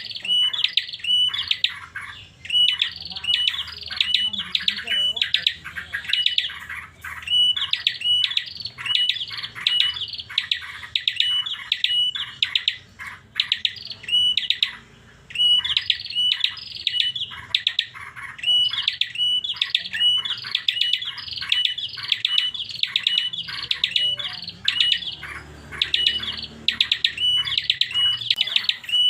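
A pet prinia (prenjak) singing a fast, unbroken string of sharp repeated chirps, pausing briefly twice; its song is unusual for a prinia.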